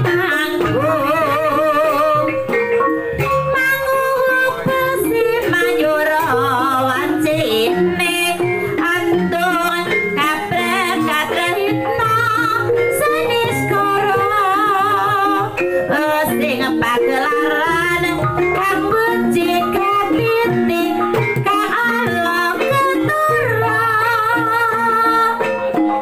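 Javanese gamelan ensemble playing a steady piece: bonang kettle gongs, hanging gongs and kendang drum keep an even rhythm, with a singing voice wavering over the top.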